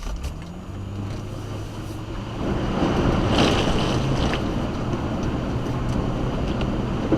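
Car engine running while the car drives through floodwater; from about two and a half seconds in, a loud rush of water spraying off the tyres and against the car, strongest just after it starts, then settling into a steady wash.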